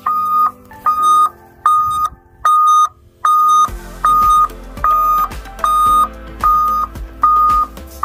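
A newly installed aftermarket truck backup alarm beeping on its first test: a loud, high, single-pitch beep repeating evenly, a little under one beep a second. A low steady rumble joins underneath about halfway through.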